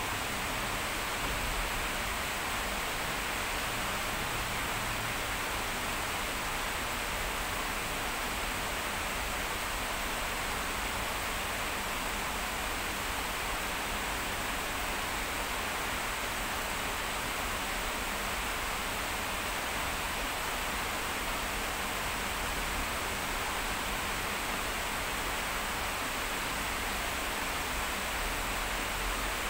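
Heavy rain falling, a steady even hiss that does not let up.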